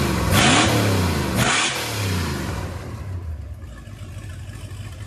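Freshly rebuilt 7.4 L MerCruiser big-block V8 with a new Holley carburetor, its throttle blipped by hand. It revs up and back down twice in the first two seconds, then drops back and the sound falls away.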